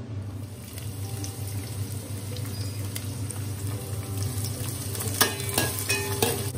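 Sliced onions and curry leaves sizzling in hot oil in a stainless steel pan, stirred with a metal spoon, with a few sharp clinks of spoon on pan about five to six seconds in. A steady low hum runs underneath.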